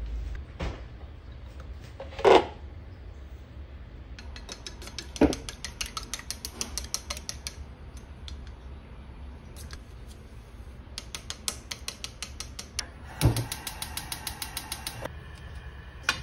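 Wooden chopsticks beating eggs and milk in a stainless steel bowl: two spells of rapid clicking against the metal, with a few single louder knocks on the bowl.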